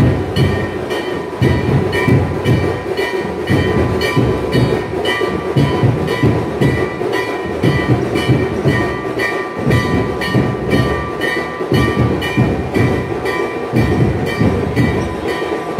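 Processional drum band playing a fast, steady beat: deep drum strokes with ringing metal cymbals over them, about three strokes a second.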